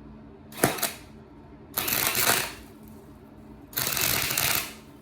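Two short bursts of arc-welding crackle, each under a second, about two seconds apart: a nut being welded onto a stripped bolt head so the bolt can be backed out. A single sharp click comes shortly before the first burst.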